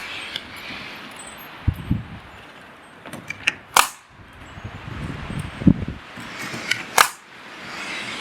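Pneumatic nail gun firing scrails to fasten metal hidden deck clips into the groove of composite deck boards: two sharp shots about three seconds apart, with smaller clicks and duller low knocks between them.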